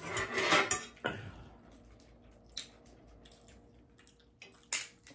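Dishes and cutlery clinking at the table: a burst of clatter in the first second, then a few single clicks and knocks.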